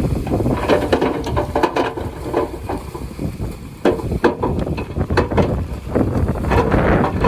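Bulldozer running with a steady low rumble and irregular clanking and knocking, typical of a working dozer's engine and tracks. Wind buffets the microphone.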